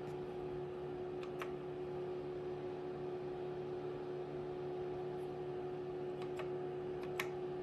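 HP 54200A digitizing oscilloscope running with a steady fan hum, and sharp clicks of its front-panel keys being pressed: a pair about a second and a half in and a few more near the end, the last one the loudest.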